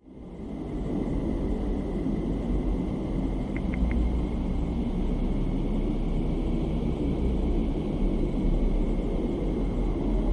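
Deep, steady rumbling noise from a sonified space recording: a planet's radio emissions converted into audible sound. It fades in at the start, with a faint high tone held underneath and three faint ticks about three and a half seconds in.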